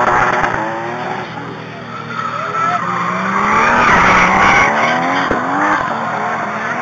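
Modified Nissan Skyline R33's RB25DET turbocharged straight-six revving hard through donuts, its pitch rising and falling, while the spinning rear tyres screech.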